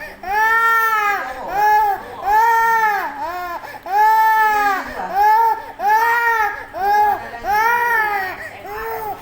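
Infant crying in repeated loud wails, about ten of them, each rising and falling in pitch with short breaths between.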